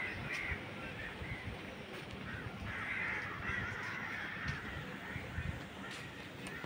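Crows cawing several times, the loudest calls about three seconds in, over a faint background.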